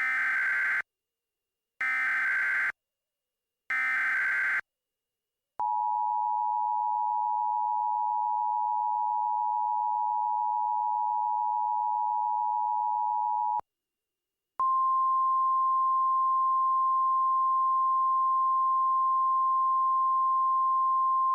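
Emergency Alert System header: three short bursts of the screeching SAME digital data code, then the two-tone EAS attention signal held steady for about eight seconds. After a brief gap comes the single steady NOAA Weather Radio warning alarm tone, the signal that opens a new alert broadcast.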